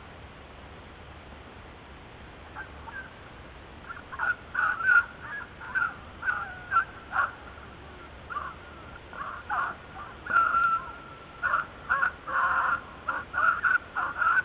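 Beagles baying in short, repeated cries, as hounds do when running a rabbit's scent. The cries are sparse at first, then come in quick overlapping volleys from about four seconds in, with one longer drawn-out bay a little past the middle.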